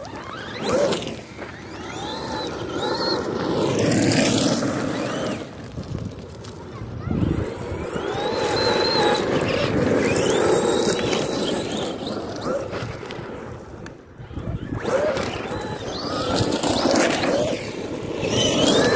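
Electric RC truck driving over gravel: its motor whines, gliding up and down in pitch as the throttle is worked, over the crunch of tyres on loose stones. The sound swells and fades in waves as the truck speeds up and slows down.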